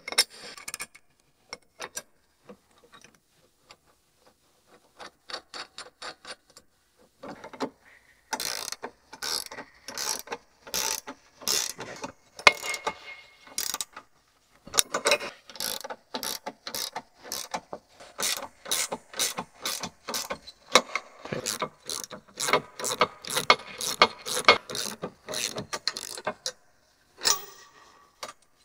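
Ratcheting wrench clicking as it tightens the nuts on a steel canopy bracket's mounting bolts. A few scattered clicks come first, then after several quiet seconds come long runs of quick clicks with brief pauses between strokes.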